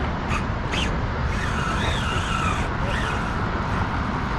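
Steady low outdoor rumble with no single clear event, and a few faint wavering high sounds about halfway through.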